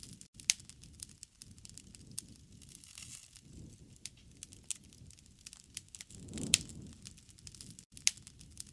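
Wood campfire crackling, with irregular sharp pops and snaps over a low rush of flame that swells briefly about six and a half seconds in, with a loud pop.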